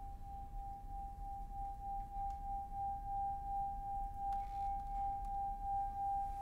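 A single held ringing tone at one steady pitch, like a singing bowl, slowly growing louder and wavering in gentle swells: the opening note of an ambient music score.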